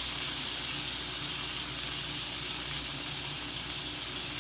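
Steaks frying in a hot skillet: a steady sizzling hiss.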